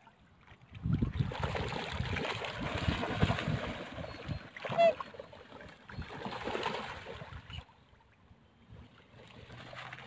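Wind buffeting the microphone over lapping lake water, easing off near the end, with one short, sharp bird call about five seconds in.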